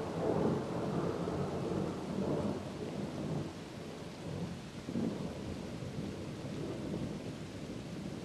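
Rolling thunder from a nearby storm cell: a deep rumble that is loudest early, swells again about five seconds in, then slowly fades.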